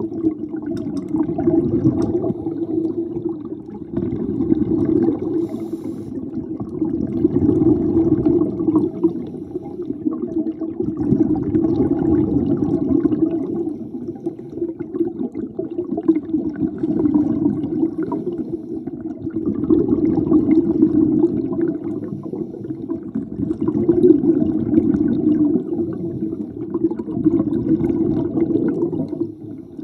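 Underwater noise of a scuba diver breathing through a regulator: the rush and rumble of exhaled bubbles, swelling and fading every few seconds.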